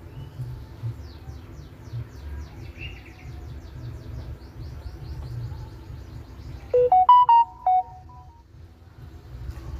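Birds chirping with a rapid high trill, then about seven seconds in a brief, loud electronic jingle of about five quick notes that rise and then fall back.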